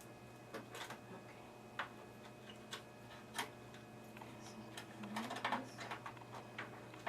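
Scattered light clicks and taps of power-supply cables and their plastic connectors being handled and fitted inside a desktop computer case, a few spaced about a second apart and a quick cluster of them about five seconds in.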